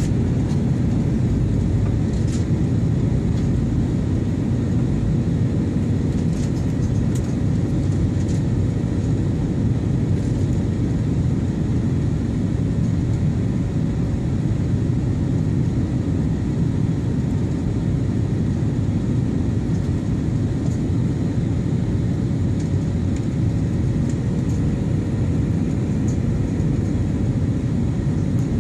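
Steady cabin noise inside an airliner in flight: a constant low rush of engines and airflow with a faint steady hum running through it.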